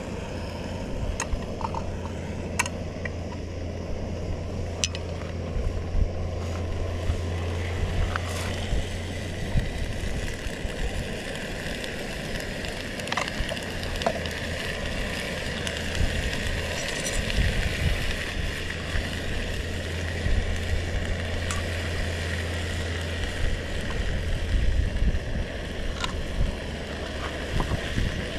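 Steady low rumble and hiss, with light clicks and taps scattered through as food is tipped into a frying pan over a canister camp stove.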